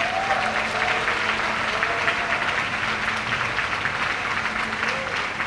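Audience in a theatre applauding: steady, dense clapping from many hands, with a few faint voices in the crowd.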